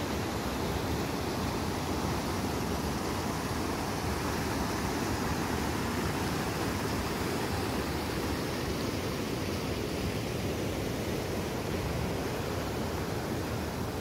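Fast mountain stream rushing over rocks and boulders: a steady, unbroken rush of white water.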